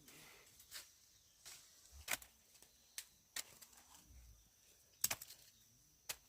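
Quiet, broken by about eight sharp clicks and snaps at irregular intervals, the loudest about two seconds in and a quick cluster about five seconds in.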